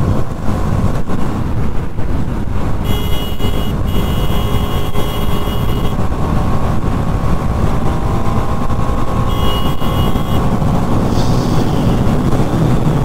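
Wind rushing over the microphone of a helmet-mounted action camera on a Bajaj Pulsar NS200 motorcycle riding at speed, with the engine running faintly underneath. A vehicle horn sounds twice: a long blast of about three seconds starting about three seconds in, then a short one near ten seconds.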